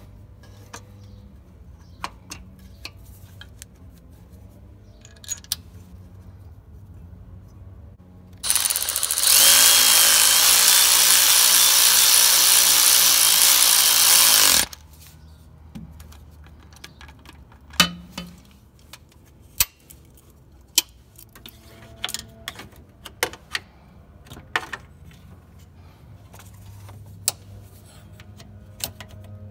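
Power ratchet running steadily for about six seconds, driving in the bolt that holds the transmission cooler-line thermostat block to the transmission case. Before and after it there are scattered light clicks and knocks of hand tools and parts.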